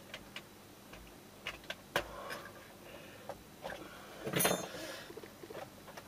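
Small plastic clicks and scrapes from a plastic spudger prising at the tight control knobs of a Pioneer DDJ-T1 DJ controller. There is a louder scraping rustle about four and a half seconds in.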